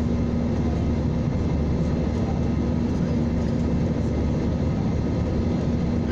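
Jet airliner cabin noise in flight: the steady drone of the engines and rushing air, with a constant low hum running through it.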